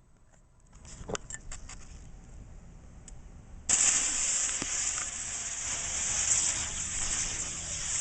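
Chinese visco fuse burning with a steady hiss that starts suddenly a little before halfway through and lasts about five seconds, after a few faint clicks.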